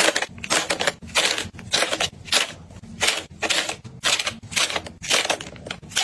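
Small plastic pods dropped by the handful into a metal wire basket, clattering against the wire and each other about twice a second.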